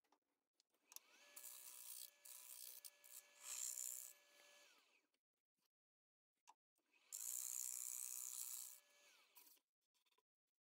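Wood lathe spinning up with a steady motor whine while a gouge cuts the inside of a macrocarpa pine bowl in a hiss of shavings, then winding down. This happens twice, with a pause of about two seconds between.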